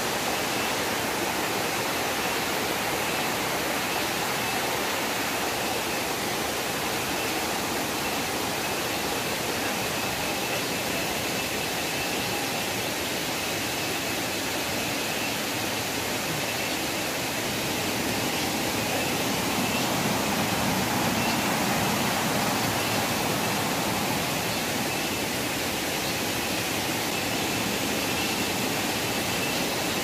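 Steady rushing of water with a faint, steady high tone above it. It grows a little louder for a few seconds past the middle.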